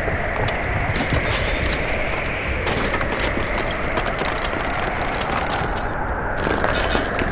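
A small motor running steadily, with long stretches of gritty crackling and crunching over it, cutting out briefly about six seconds in.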